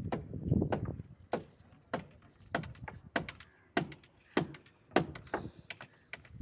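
Repeated sharp knocks at an even pace, about three every two seconds, typical of hand-tool blows on construction work. A low rumbling noise sits under the first second.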